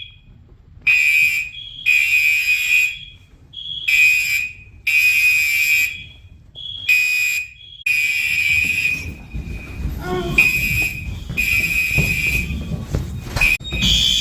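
Building fire alarm sounding in repeated loud, high-pitched blasts, with a shorter, higher tone between some of them. From about eight seconds in the alarm sounds almost without pause, over a low rumble of movement and a few sharp knocks.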